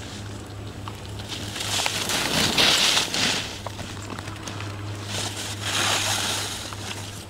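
Skis scraping and hissing over packed snow as a skier carves two turns close by: two swells of scraping noise, each about a second and a half long, the first the louder.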